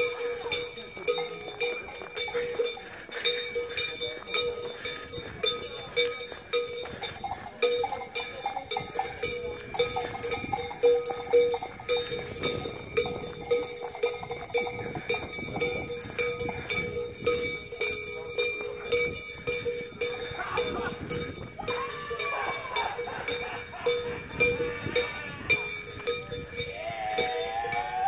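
Many cowbells worn by costumed devils (čerti) clanging without a break as they walk, a dense jangling ring. A voice calls out briefly a couple of times, once near the end.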